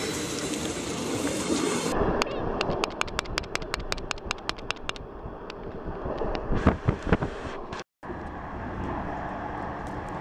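A passenger train passing close by on the track, then the running of a train heard from inside the carriage: a rapid even run of clicks, about five a second, a few louder knocks, a brief dropout, and steady rolling noise.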